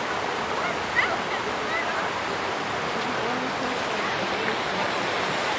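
A large fountain's water jets and cascades splashing steadily into its pool, with faint chatter of people in the background.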